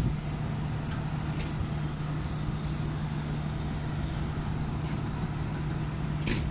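Passenger coaches rolling slowly past during shunting over the steady low drone of a diesel locomotive engine, with a few sharp clicks from the wheels, the last one near the end louder.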